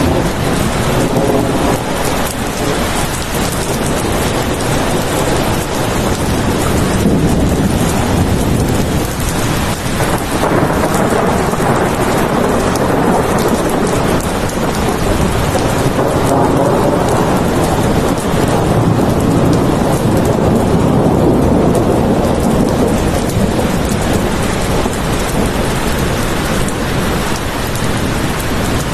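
Steady heavy rain falling, with a low thunder rumble swelling through the middle.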